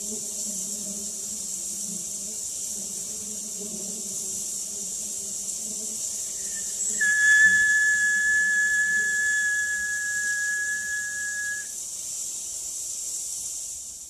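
Recorded honeybee hive buzzing played back through computer speakers, a low hum that fades out about five seconds in, over a steady high hiss. From about seven seconds in, a single steady high-pitched whistle tone is held for about four and a half seconds, then stops.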